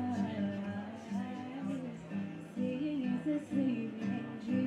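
Acoustic guitar strummed with held, ringing chords under a sung vocal melody that bends and glides in pitch.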